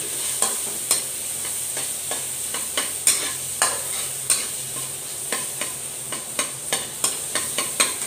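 Metal spatula scraping and tapping against a steel wok, irregular sharp clinks about two to three a second, over the steady sizzle of minced garlic sautéing in butter.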